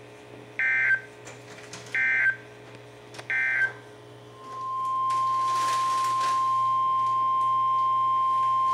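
Three short bursts of SAME digital data screech, about a second and a half apart: the end-of-message code closing an Emergency Alert System warning. Then, about four and a half seconds in, a steady single-pitch attention tone starts, the NOAA Weather Radio 1050 Hz alert tone that opens the next warning.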